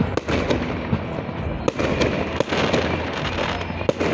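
Fireworks salute going off: a continuous crackle of bursting stars, punctuated by several sharp bangs.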